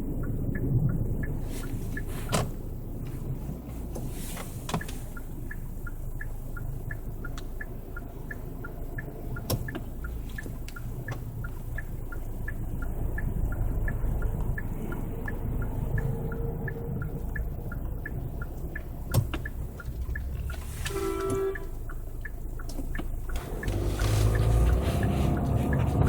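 Hyundai Santa Fe DM being driven, heard from inside the cabin: steady low road and running noise with a row of light ticks about twice a second and a few sharp knocks, the creaking noise that keeps coming from the front underside while driving.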